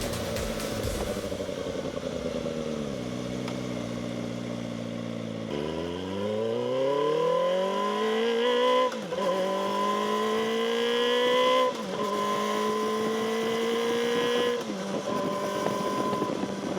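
2024 Kawasaki Ninja ZX-4RR's inline-four on its stock exhaust, under way: the revs fall and settle, then climb through the gears with two upshifts about three seconds apart, and it holds steady before easing off near the end.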